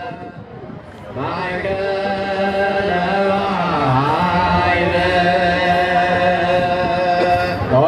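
Ethiopian Orthodox religious song (mezmur), chanted in long held notes over a steady low note, swelling louder about a second in.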